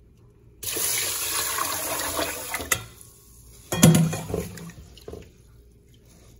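Water pouring into a rice cooker's inner pot of drained rice for about two seconds, starting just under a second in. About a second later there is a short, loud bump and splash, then quieter swishing as a hand swirls the rice in the water for the next rinse.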